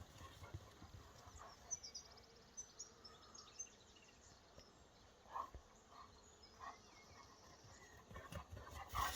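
Near silence with faint room or outdoor background, a few faint short high chirps near the middle and a few soft taps after that.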